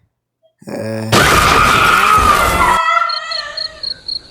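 A loud screeching, engine-like noise sound effect lasting about two seconds, with squealing tones over a rough noise, trailing off. Crickets then chirp in quick, regular pulses near the end.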